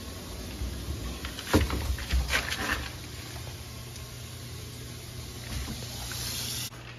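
Handling noise as a phone camera is moved about inside a wooden sink-base cabinet: a couple of sharp knocks and some rustling, over a steady hiss that stops abruptly near the end.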